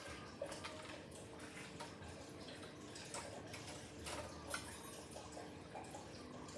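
Water dripping and lightly splashing, with scattered small clicks and a faint steady hum underneath.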